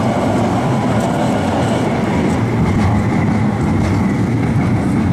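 Heavy traffic passing close by on a city bridge, a loud steady rumble with a faint high whine joining about two seconds in.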